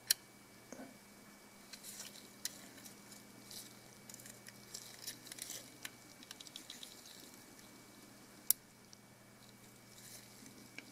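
Faint handling noise of the camera's plastic top cover being worked into place with gloved hands: scattered small clicks and rubbing, with two sharper clicks, one as it begins and one about eight seconds in.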